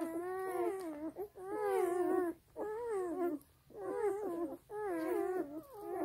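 A nursing German Shepherd puppy crying: a string of wavering, whining cries, each about a second long, with short breaks between them.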